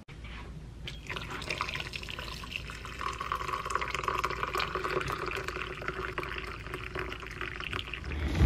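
Water poured in a thin stream into a glass mug holding a lemon slice, splashing and filling, starting about a second in.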